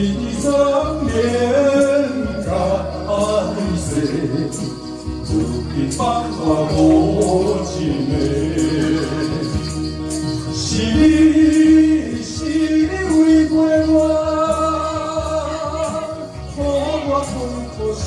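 Live singing into a handheld microphone over a pop backing track with a steady beat, amplified through a PA loudspeaker.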